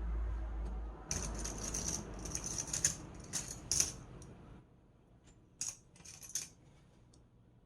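Computer keyboard and its plastic parts being handled: a run of rattling and clattering lasting a few seconds, then a few separate sharp clicks.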